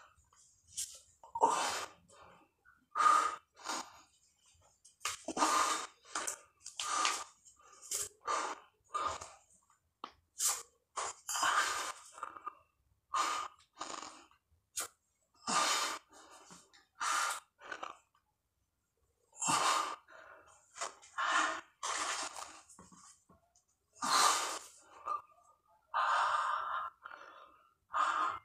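A man breathing hard from exertion during push-ups: short, heavy breaths in quick succession, with a brief pause about two-thirds of the way through.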